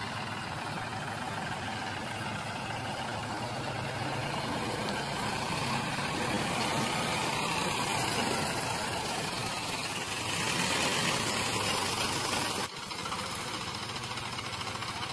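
Diesel tractor engines running hard under load while one tractor tugs another, stuck in mud, out on a rope, the stuck tractor's rear wheels churning. The sound swells about two-thirds of the way through, then drops suddenly.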